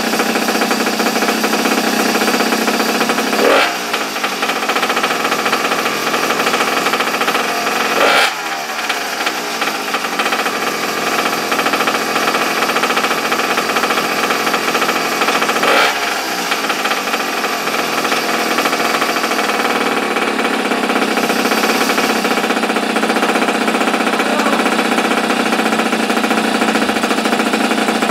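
Small air-cooled two-stroke pocket-bike engine running steadily, with three brief jumps in revs, about 3.5, 8 and 16 seconds in.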